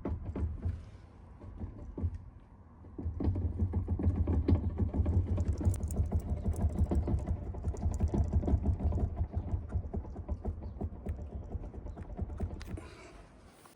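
Low droning rumble inside a moving car, with a fast flutter. It is the sound of a failing, worn wheel bearing at speed. It eases briefly early on and dies down near the end.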